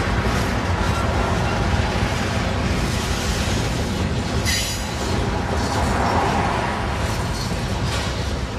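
Freight cars, boxcars and centerbeam lumber flatcars, rolling past at speed: a steady rumble of steel wheels on rail, with a brief high hiss about four and a half seconds in.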